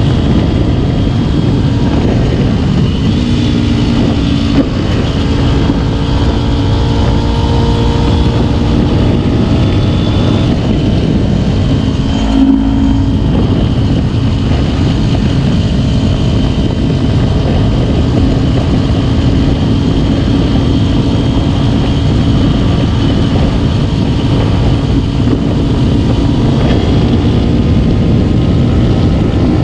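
Kawasaki Ninja 250 motorcycle engine running at a steady cruise, under heavy wind noise on the microphone. The engine note shifts slightly a few seconds in and breaks briefly about twelve seconds in.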